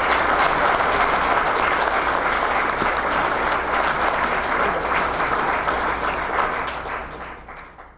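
Audience applauding an award winner, steady clapping that dies away near the end.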